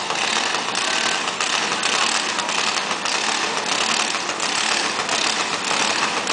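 Junior dragster's single-cylinder engine idling, loud and steady with an uneven pulse.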